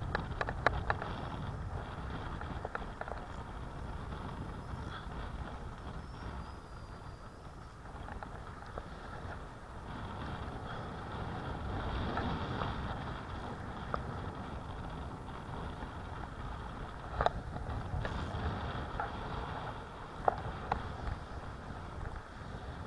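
Strong wind buffeting the microphone, a steady low rumble under a broad hiss, with a few sharp ticks here and there.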